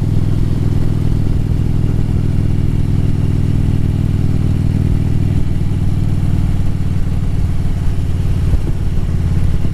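Harley-Davidson Road Glide's V-twin engine running at a steady cruise on the road, heard from the rider's seat.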